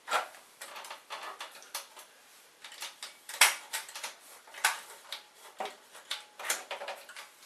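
Irregular clicks and knocks of hard plastic and metal parts as an inkjet printer's print-head carriage is worked apart by hand, the sharpest knock about three and a half seconds in.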